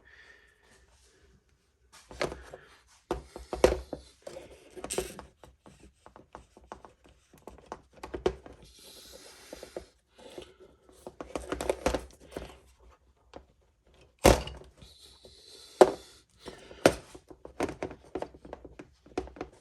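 Irregular knocks, clicks and clatter of metal and plastic parts being worked by hand as LS fuel injectors are pried out, with a couple of short hisses.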